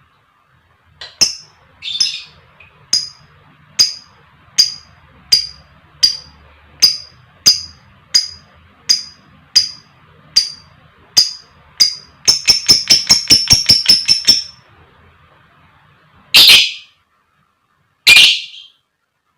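Lovebird calling: sharp, high, short chirps repeated evenly, a bit more than one a second, break into a fast rattling chatter about twelve seconds in. Two longer, louder shrieking calls follow near the end.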